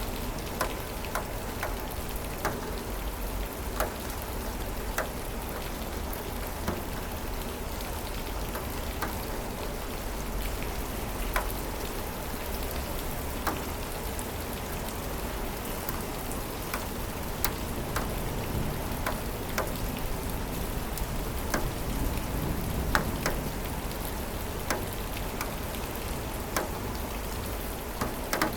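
Steady rainfall, a constant hiss with individual close drops landing sharply at irregular moments, a few each second.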